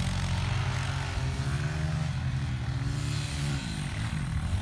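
Small off-road engines of a dirt bike and an ATV revving in sand, their pitch rising and falling as the throttle opens and closes.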